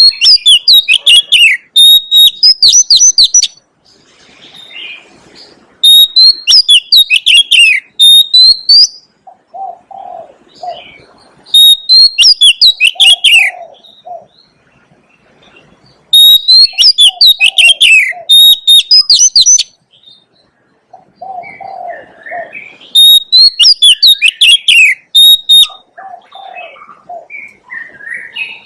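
Oriental magpie-robin singing five loud phrases of rapid, varied whistled notes separated by short pauses. Softer low notes come in the gaps between phrases.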